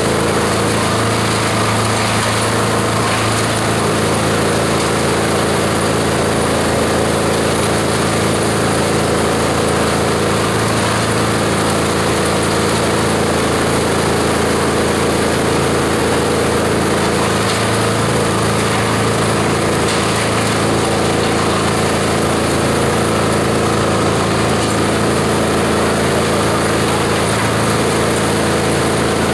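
Multi-purpose chopper-shredder running steadily under load, a constant machine hum with several steady tones as it shreds fresh green leaves and stems fed into its hopper.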